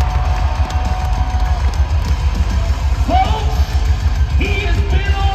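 Loud rock music over an arena's sound system, with a heavy pulsing bass beat; a voice comes in over it about three seconds in.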